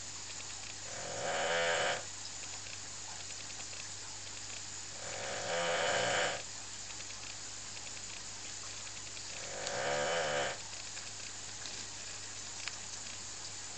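A dog snoring: three drawn-out snores about four seconds apart, each lasting about a second, with a fourth starting right at the end. A steady low hum runs underneath.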